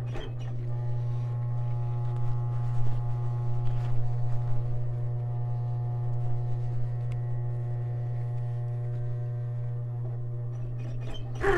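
Industrial flatbed sewing machine running at a steady speed, stitching a leather sleeve onto a jacket body over the constant hum of its motor. It stops about a second before the end.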